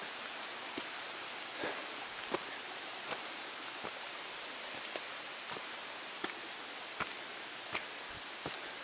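Footsteps on a rocky mountain trail, a short scuff or click about every three-quarters of a second, over a steady hiss.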